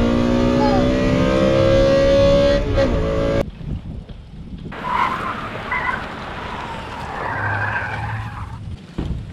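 Car engine racing with a slowly rising whine, cut off abruptly about three and a half seconds in, followed by a quieter rushing noise.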